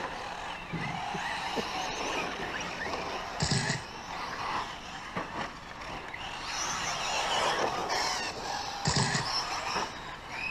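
Radio-control short course trucks racing on a dirt track, their motors whining as they speed up and slow down. Two short louder noises come about three and a half and nine seconds in.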